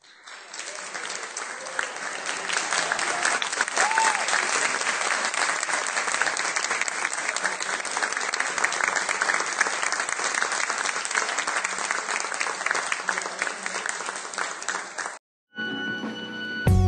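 Audience applauding steadily in a hall for about fifteen seconds; the applause cuts off suddenly. Music starts just before the end.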